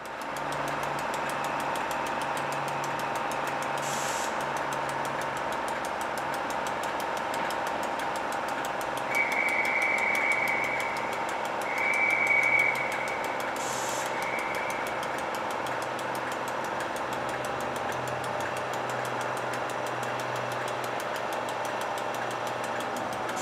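Class 91 electric locomotive standing at the platform, humming steadily with several steady tones over a low buzz. A high whistle-like tone sounds three times, the first about nine seconds in and the last around fourteen seconds.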